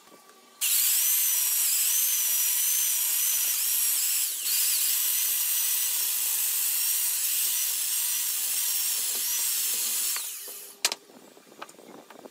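Small handheld electric chainsaw cutting into a gnarled piece of wood, its high motor whine wavering as it bites, with a brief dip about four seconds in. It stops about ten seconds in, followed by a single sharp knock and faint handling knocks.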